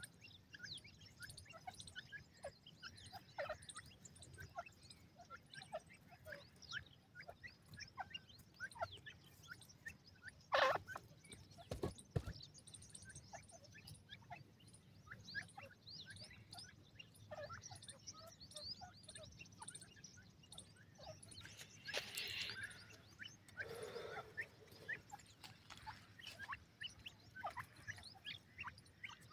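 Grey francolin chicks chirping: many short, high-pitched chirps scattered all through. A couple of sharp knocks come about ten to twelve seconds in, and a brief rustle some ten seconds later.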